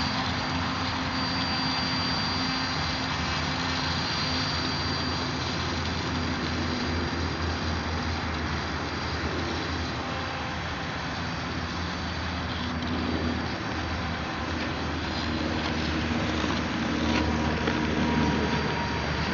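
Propeller of a homemade RC snowmobile, driven by a small Rimfire 2400 kV brushless electric motor, buzzing with a thin high whine as it runs across the ice. The whine fades after several seconds as the snowmobile moves off. A steady rushing noise continues throughout.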